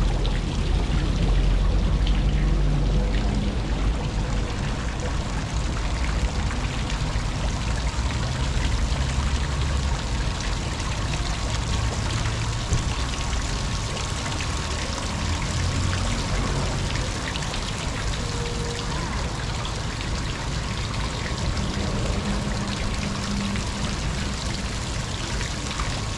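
Steady splash and patter of water falling from a small fountain jet into a shallow pond, with a low rumble underneath.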